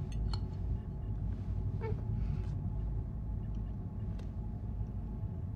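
A steady low starship-interior hum, with a few light clinks of a fork on a plate near the start and a short hummed 'mm' of a woman tasting food about two seconds in.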